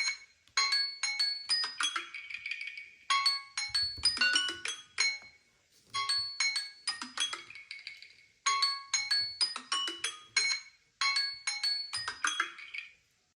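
Samsung Galaxy phone alert tone: a short phrase of bright, chime-like mallet notes, repeated about every two and a half seconds and stopping near the end.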